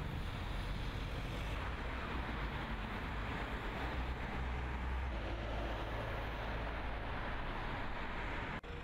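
Steady outdoor rumble with wind buffeting the microphone. It cuts out briefly near the end.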